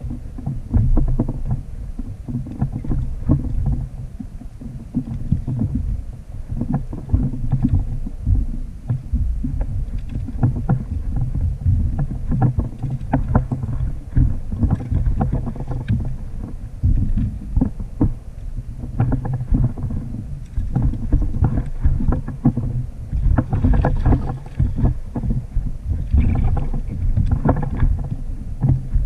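Wind rumbling and buffeting on the camera microphone over water lapping at a plastic kayak's hull, with frequent small irregular knocks.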